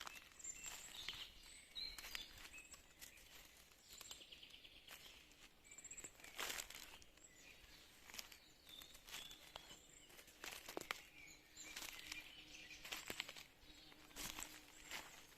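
Faint forest ambience with scattered short, high bird chirps and occasional brief clicks and crackles.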